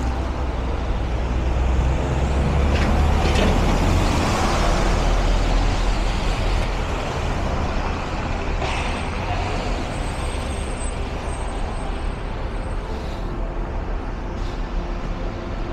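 City street traffic on wet pavement: engines rumbling and tyres hissing, with a heavy vehicle growing louder about two seconds in and easing off after about six seconds.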